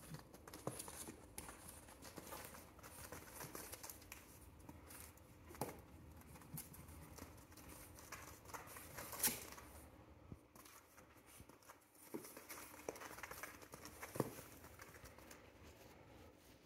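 Faint scratching and clicking of a pug puppy's claws as it paws and climbs at a plastic toy slide, with a few sharper knocks now and then.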